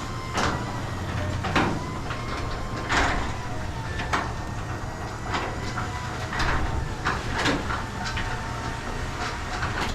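Genie 1028 belt-drive garage door opener running as it closes the door: a steady motor and belt hum with a sharp knock about once a second as the door travels.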